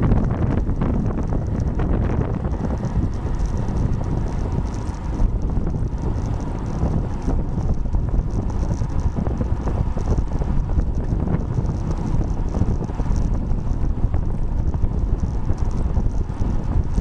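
Steady wind rushing over the microphone of a camera mounted on a road bike going about 30 mph downhill.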